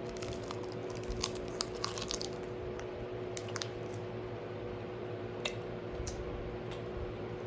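Someone eating close to the microphone: a scatter of small clicks and crunches, most of them in the first couple of seconds and a few more later, over a steady low hum.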